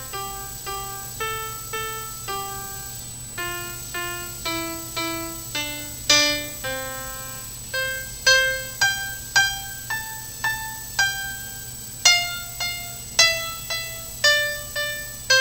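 A piano-like melody of single struck notes, each ringing and fading, about two a second, played back through an ultrasonic phased-array loudspeaker in planar-wave mode and picked up by a microphone. A steady low hum and a thin high-pitched tone run under it.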